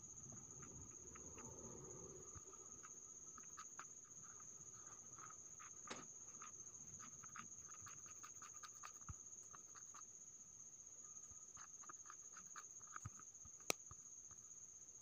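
Near silence: faint background with a steady high whine and scattered faint ticks, and one sharper click near the end.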